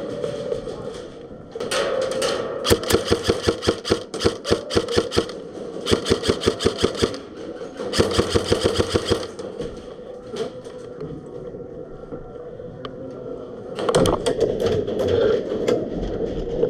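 Airsoft electric gun (AEG) firing on full auto in several bursts, each a rapid run of shots, with short pauses between bursts and a later, lighter run of shots near the end.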